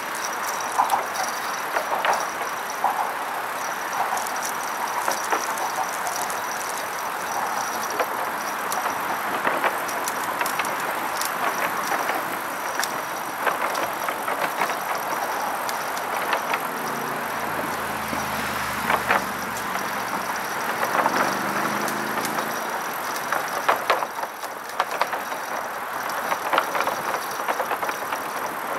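Bicycle tyres rolling over wooden deck planks: a steady rushing noise with frequent small clacks and rattles as the boards pass under the wheels. For a few seconds past the middle a low hum swells and fades.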